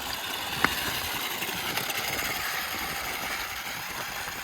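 Toy RC car's electric motor whirring steadily as the car drives, with one sharp click about two-thirds of a second in.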